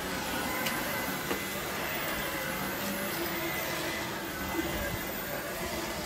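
AEG Ultimate 8000 cordless stick vacuum running steadily on carpet with its carpet brush head: an even rush of air with a thin motor whine.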